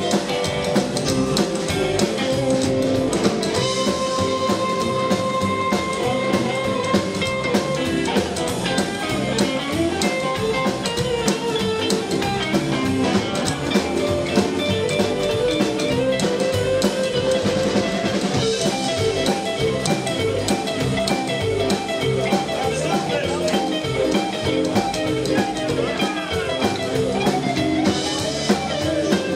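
Live band playing rock and roll: electric guitar over a steady drum kit beat and bass.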